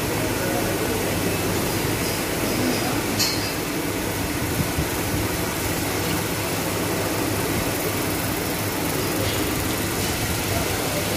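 Steady mechanical drone and rushing air of cattle shed ventilation fans running, with a faint click about three seconds in.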